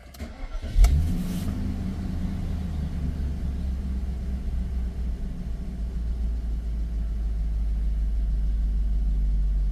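Audi A8 engine starting about a second in with a short crank and a sharp catch, then idling steadily with a low rumble.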